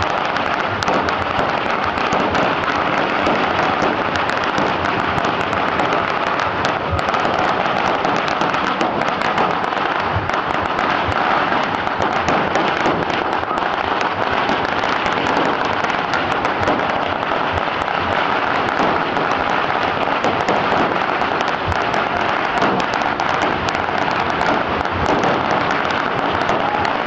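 A pagara, a very long string of red firecrackers laid along the street, burning down in a continuous, dense crackle of rapid bangs without a break.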